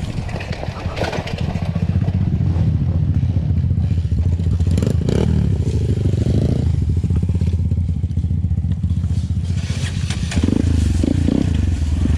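Enduro dirt bike engine running under load on the trail, rising in pitch as it revs about five seconds in. Sharp knocks and clatter come twice, around the middle and near the end.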